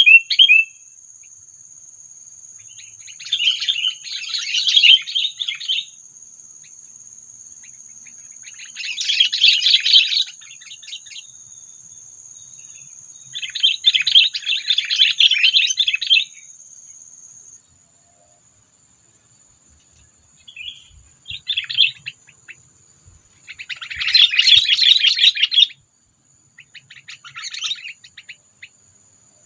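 Sooty-headed bulbuls (kutilang) chattering in about six harsh, rapid bursts of one to three seconds each, the agitated calling of a decoy bulbul set against a rival. A steady high-pitched tone runs underneath and fades about two-thirds of the way through.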